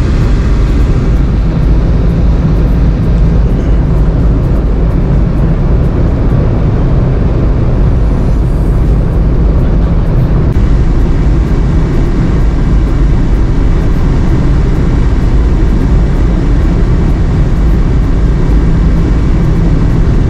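Loud, steady low rumble of the car ferry Sunflower Cobalt's engines and propeller wash as the ship pulls away from its berth.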